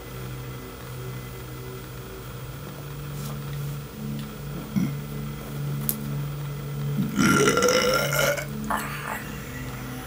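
A man's voice: a low hum that swells and breaks about once a second, then about seven seconds in a loud throaty vocal sound rising in pitch, followed by a shorter one.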